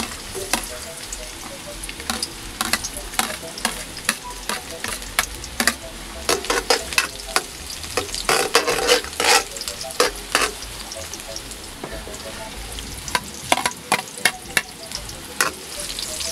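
Chopped garlic sizzling in hot oil in a stainless steel wok, stirred with a metal spatula that repeatedly knocks and scrapes against the pan, most busily in the middle stretch.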